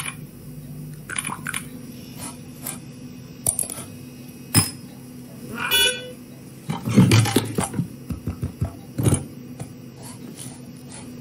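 Cartoon office sound effects: scattered clicks and knocks over a low steady hum, with a short electronic chime about six seconds in, the sound of a computer error message.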